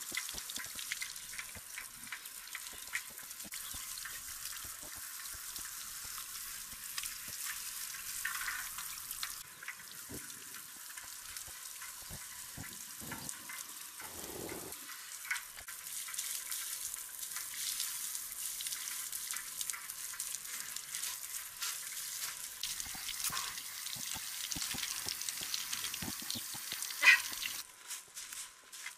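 Beach shower running: a steady hiss of water spraying onto a dog and the concrete pad beneath. A single sharp knock near the end, and the hiss cuts off just after it.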